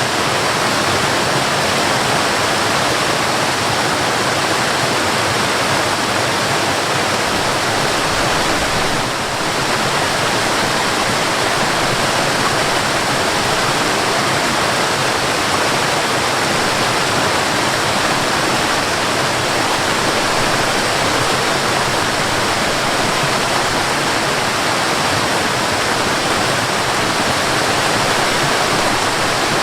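Mountain waterfall pouring: a steady, dense rush of falling water.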